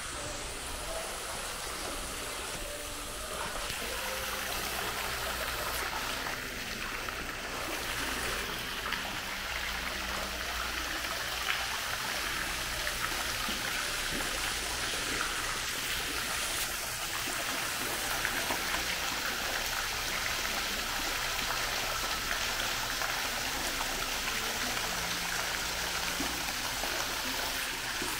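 Indoor mall fountain running: a steady rush of splashing and trickling water, growing a little louder in the first few seconds and then holding even.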